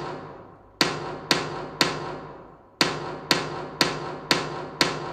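Sharp percussive strikes beating out a quarter-note rhythm exercise at about two a second: three strikes, a one-beat rest, then five strikes, each with a ringing decay.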